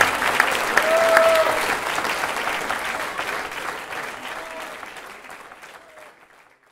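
Audience applauding, the clapping steadily fading away, with a few short calls from the crowd, until it cuts off just before the end.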